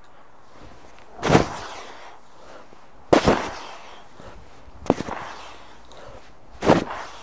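Swings of a 30-pound steel mace, a short sharp whoosh with each swing: four in a steady rhythm, about one every two seconds.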